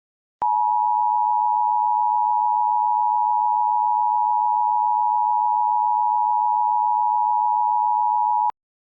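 Emergency Alert System attention signal: one steady electronic alert tone, held for about eight seconds, switching on and off abruptly with a click. It is the alert that precedes a broadcast emergency bulletin.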